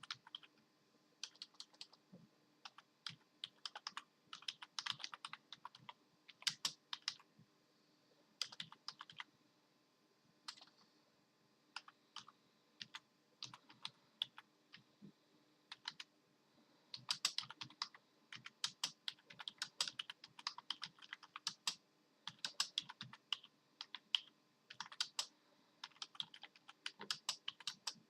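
Typing on a computer keyboard: quick runs of keystrokes in irregular bursts, broken by short pauses, busiest in the second half.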